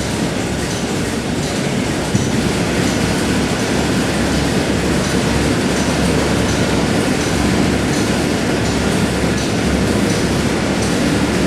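Steady, loud rumble of industrial machinery, with faint ticks now and then.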